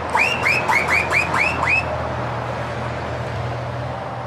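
A quick run of about seven chirps, each sweeping up in pitch, fills the first two seconds. A steady low truck engine drone with road noise follows.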